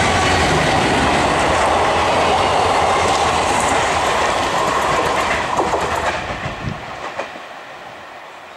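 Alco WDM-3A diesel locomotive and its two coaches passing close by: low engine rumble and wheels running on the rails, with clacks over the rail joints as the coaches go by. The sound fades away from about six seconds in as the train recedes.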